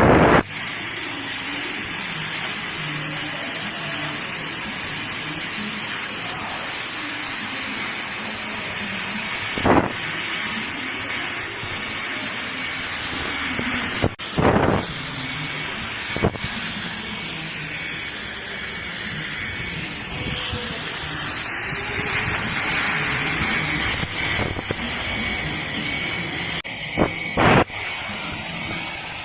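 Flame metal-cutting torch hissing steadily, with a few brief louder noises about ten, fourteen and twenty-seven seconds in.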